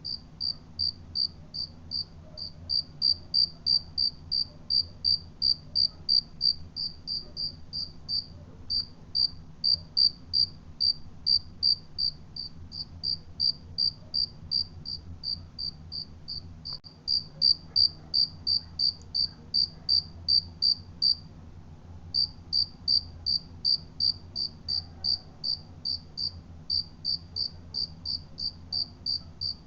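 Cricket chirping steadily, a high pulsing note repeated about two and a half times a second, with a short break about two-thirds of the way through.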